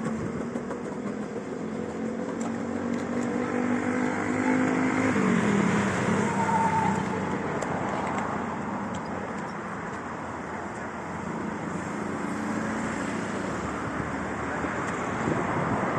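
Street traffic: a motor vehicle's engine hums steadily, then drops in pitch about five seconds in as it goes by, over a continuous wash of road noise.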